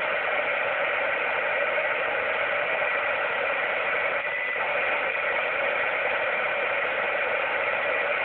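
Steady hiss from an Ascom FM transceiver's speaker, tuned on the 4 m (70 MHz) band with no station coming through: open-squelch receiver noise.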